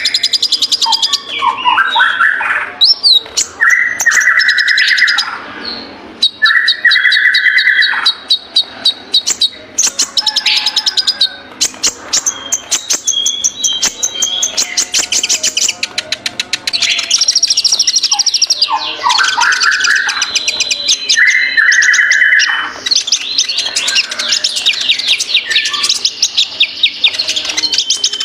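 A kolibri ninja sunbird singing loud and without a break: rapid, high chattering trills, with a lower, buzzier phrase repeated several times.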